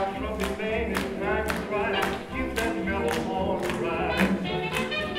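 Swing jazz music playing for Balboa dancing, with a steady beat of about two strikes a second.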